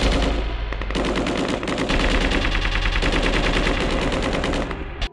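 Rapid, sustained machine-gun fire, a dense run of shots used as a sound effect, cutting off abruptly just before the end.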